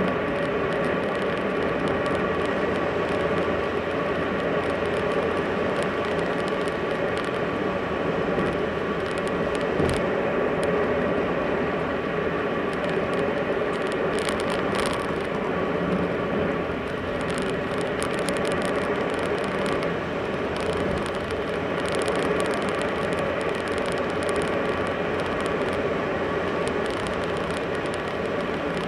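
Car driving at a steady speed: engine and tyre noise heard from inside the cabin, even throughout, with one light knock about ten seconds in.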